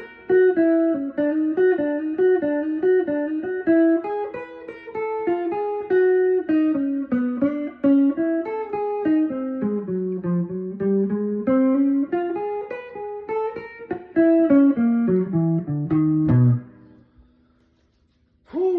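Jazz guitar playing an unbroken single-note line of eighth notes in B, winding up and down in pitch. The line descends to a low note about three-quarters of the way through, which rings briefly before the playing stops.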